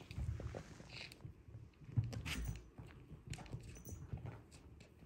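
Bengal kittens scrambling over cushions and bedding: irregular soft bumps, taps and fabric rustles, with one sharp knock about two seconds in.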